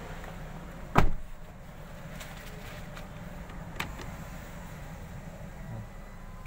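Mitsubishi Xpander Cross's 1.5-litre four-cylinder petrol engine idling, heard as a steady low hum inside the cabin. A sharp knock comes about a second in, and a lighter click just before four seconds.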